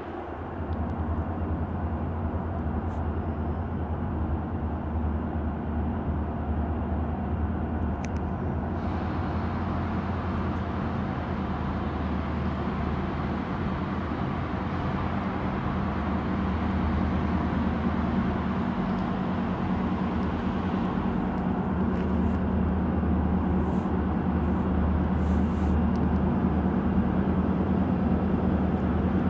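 Steady low rumble of a train approaching slowly through the rail yard, gradually growing louder.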